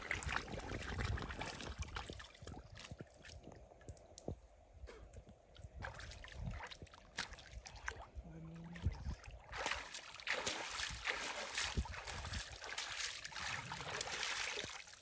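Water sloshing and splashing in uneven surges as a person moves about while swimming or wading, with the trickle of flowing water behind it. The splashing is loudest near the start and through the second half.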